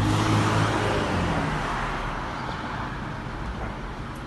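A motor vehicle going by, its engine hum and road noise fading away over the first couple of seconds.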